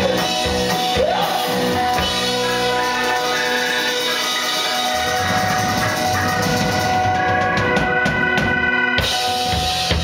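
Live rock band playing: drum kit, electric and acoustic guitars and keyboard holding sustained chords, with a brief sung line in the first second.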